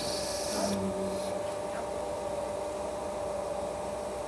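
Motor of a gem-faceting lap humming steadily as the disc spins. An aquamarine is pressed against the diamond-charged lap, giving a short hissing grind at the start and a fainter one about a second in.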